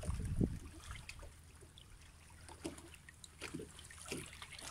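Faint trickling and lapping of seawater among shoreline rocks, with scattered small clicks. A low rumble on the microphone in the first half second.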